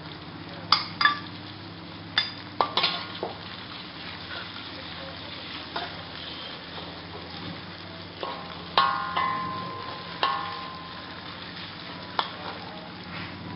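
A metal spatula scrapes and clanks against a metal wok as chopped vegetables are stir-fried in hot oil over a steady sizzle. Sharp ringing clanks come at irregular moments, about a dozen in all, the loudest in the first second and about nine seconds in.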